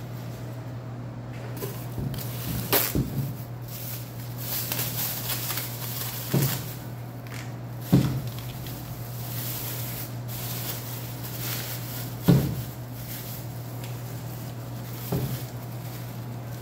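Thin plastic bag crinkling as a filled plastic açaí cup is wrapped and handled, with five sharp knocks of the cup against a metal counter; the knocks about eight and twelve seconds in are the loudest. A steady low hum runs underneath.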